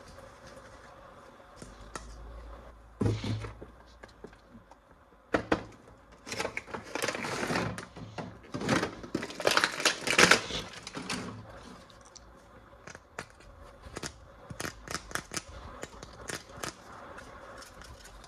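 Toys and their plastic packaging being handled: scattered sharp clicks and crackling, with a busier stretch of rustling and crackling in the middle.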